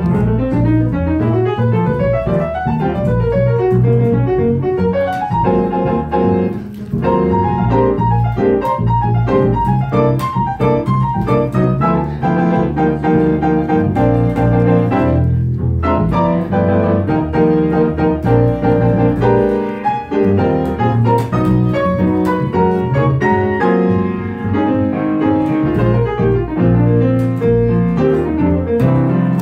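Live piano playing a busy instrumental passage of quick runs of notes over a steady bass line, with no singing.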